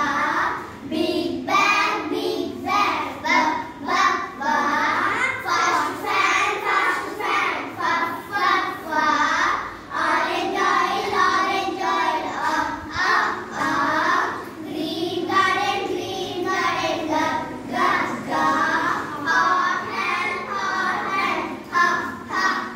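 A small group of young schoolgirls singing a phonics song together in unison, sounding out letter sounds in short rhythmic syllables.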